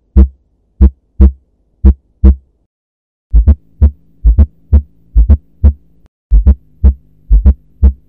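Heart sounds through a stethoscope. First a normal beat: paired lub-dub thumps (S1 and S2) about once a second. From about three seconds in comes a beat with a fourth heart sound (S4 atrial gallop): a low extra thump just before each S1 gives a three-part gallop rhythm, over a faint steady hum. The S4 comes from atrial contraction filling a stiff ventricle.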